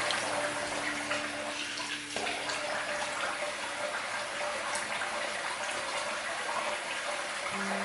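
Tap water running steadily into a sink while shaving lather is rinsed off the face after a wet shave.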